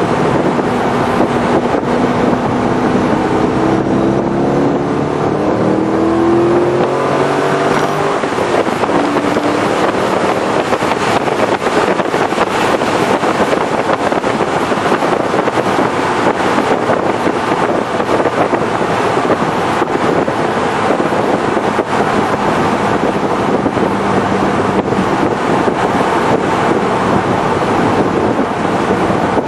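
Chevrolet Corvette Z06 V8 accelerating hard, its pitch rising over the first several seconds. Then steady loud wind and road noise at highway speed takes over, with the engine faint beneath it.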